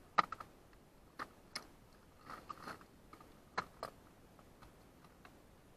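Scattered small clicks and light knocks, irregularly spaced, from handling a caught rockfish and tackle on a plastic tray.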